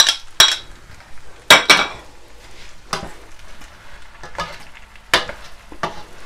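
Metal slotted spoon stirring basmati rice in a stainless steel pot, with sharp scrapes and clinks of the spoon against the pot every second or so. A low sizzle of the rice frying runs underneath.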